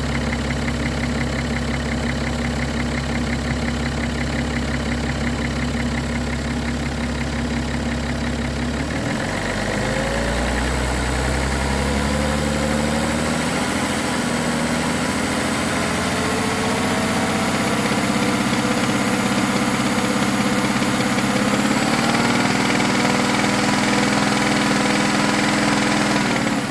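BMW F10 525d diesel engine running steadily at about 2000 rpm. Its pitch shifts about nine seconds in, then holds steady again.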